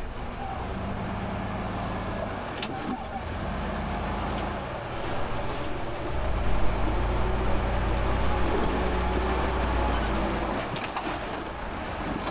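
Engine of a lifted Jeep CJ running at low speed as it crawls over rocks, growing louder for a few seconds in the middle and easing off near the end.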